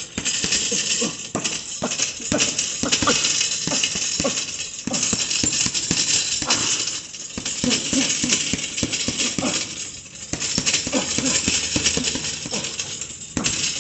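Boxing gloves rapidly punching a leather double-end bag, a quick run of slaps as the bag snaps back and is hit again, with a few brief lulls. Sharp exhaled breaths and grunts come with the punches.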